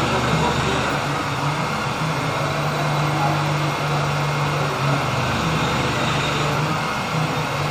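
A Fanuc-controlled CNC machine tool running: a steady low hum with an even hiss over it.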